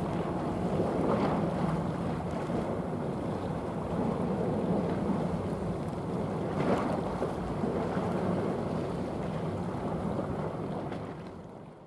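Wind noise on the microphone over the rush of choppy sea water, steady with a couple of brief louder moments, fading out near the end.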